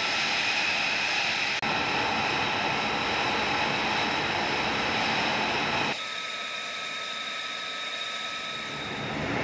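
F-35 fighter jet's engine running: a steady rush with several high, steady whining tones on top. The sound changes abruptly about one and a half seconds in and again about six seconds in, and is a little quieter after the second change.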